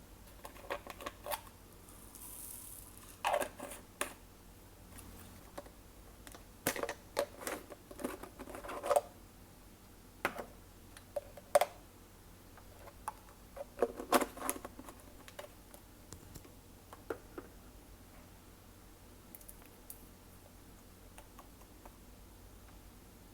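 Glossy slime being pressed and worked by hand, giving irregular sticky clicks and small pops in scattered bunches, quieter for the last several seconds.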